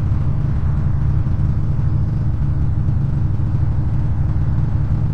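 Buick Century's engine idling, a steady low rumble.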